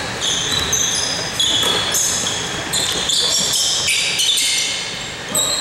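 Basketball game on an indoor court: sneakers squeaking on the floor in many short, high-pitched chirps, with the ball bouncing.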